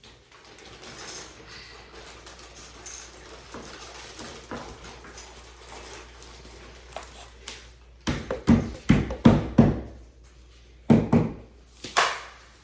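Parts of flat-pack furniture being handled and shifted, then a quick run of about five sharp knocks eight seconds in, with three more knocks near the end.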